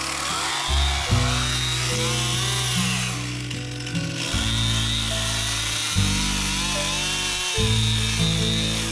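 Background music with sustained bass notes changing every second or so, over a Stihl MS261 chainsaw cutting, its engine pitch wavering up and down under load.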